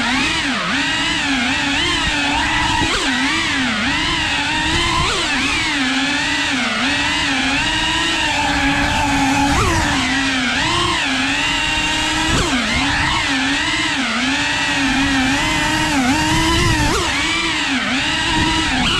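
Cinewhoop FPV drone's electric motors and propellers buzzing, the whine rising and falling in pitch continually as the throttle changes during flight.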